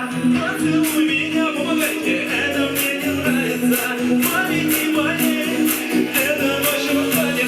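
A song playing: a singer's voice over a steady drum beat, with bass and other instruments.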